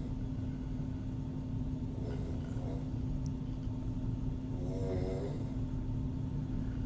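A woman snoring through an open mouth: a faint snore about two seconds in and a stronger, longer one around five seconds in, over a steady low hum.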